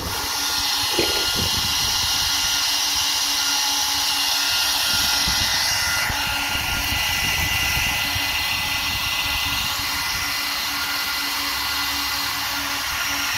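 Small 40mm electric cooling fans on an RC truck's motor and ESC whirring steadily at speed, a high whine over a low hum. They are still running on the battery's balance lead after the run. The whine's tone shifts about six seconds in.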